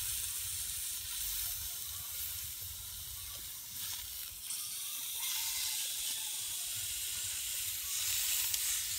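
Meat sizzling on the hot plates of a plastic-pipe heat-welding machine used as a grill, a steady hiss that grows louder about halfway through. A couple of light clicks come near the middle.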